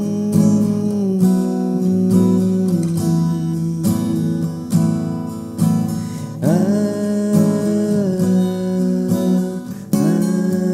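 Acoustic guitar strummed in a steady rhythm, with ringing chords that change every couple of seconds.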